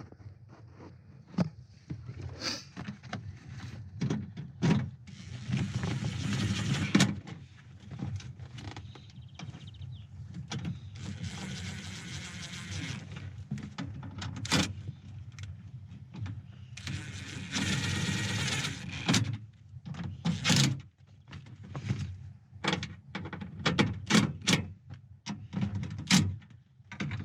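Window-regulator bolts being done up inside a car door with a hand tool: three spells of about two seconds of steady tool noise, with sharp clicks and knocks of tool and metal parts in between.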